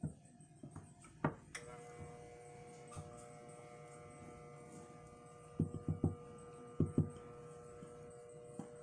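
A steady electrical mains hum with several tones switches on with a click about one and a half seconds in. Several light knocks near six and seven seconds come from a silicone spatula striking the glass beaker as the melted soap is stirred.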